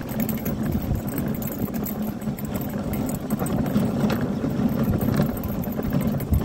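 Dog sled moving along a packed snow trail behind a trotting husky team: a steady rumble of the runners over the snow.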